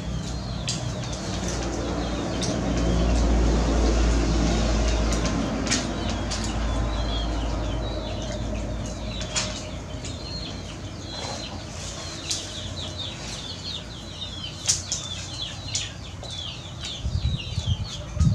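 Knife and fork working a roasted pig head on a steel tray, with scattered sharp clicks of the cutlery against the metal. Birds chirp in the background, with many short chirps from about halfway through.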